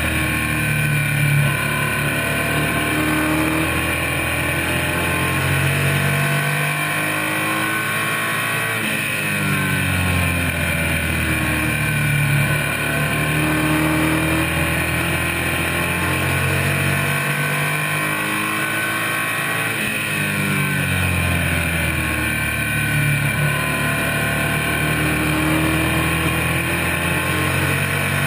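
Stock car's engine heard from inside the cockpit at racing speed. It revs up along the straights and drops off as the driver lifts for the turns, a full lap about every eleven seconds, over constant wind and tyre noise.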